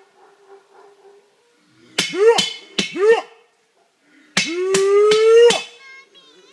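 Loud howler-monkey calls: two short barking whoops about a second apart, then one long call held for about a second that slowly rises in pitch.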